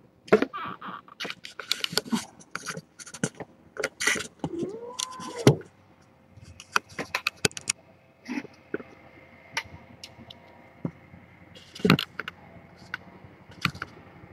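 Clicks, scrapes and rustling, as of things being handled close to the microphone, with one brief call that rises and falls in pitch about five seconds in. After about eight seconds it settles to a faint steady hum with a few scattered clicks.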